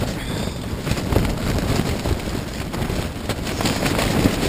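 Strong wind gusting against a tent, heard from inside, with the nylon walls and loose tent fly flapping and rattling rapidly; the camper suspects most of the fly's stakes have pulled out.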